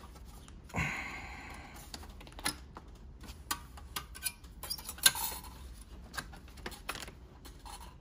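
Scattered light clicks and metallic rattles of the sheet-metal hard-drive shield and drive bracket of a Dell OptiPlex 9030 all-in-one being wiggled and slid by hand. There is a click and short scrape about a second in and the loudest rattle about five seconds in.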